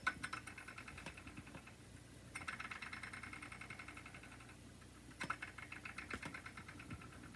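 A small magnet flicked against a metal bar under a desk, chattering against the metal in a rapid run of faint metallic ticks. It buzzes in three bouts, the strongest from about two to four and a half seconds in.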